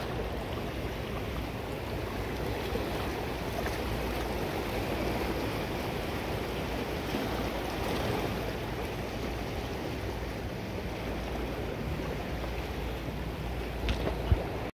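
Fast-flowing river water rushing steadily. A couple of brief knocks near the end, then the sound cuts off suddenly.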